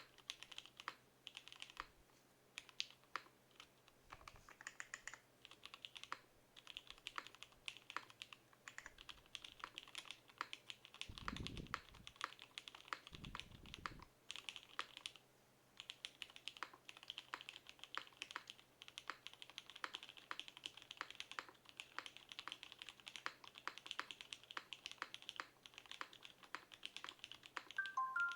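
Typing on a custom 60% mechanical keyboard with an acrylic gasket-mount case, half plate and Jwick Black linear switches: fast, steady keystrokes with short pauses. Two low thumps come a little before the middle.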